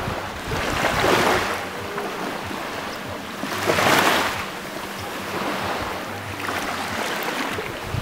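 Small sea waves breaking over rocks and washing up a pebble shore, each wash a hiss that swells and fades away; the strongest comes about four seconds in, with a smaller one about a second in and gentler washes near the end.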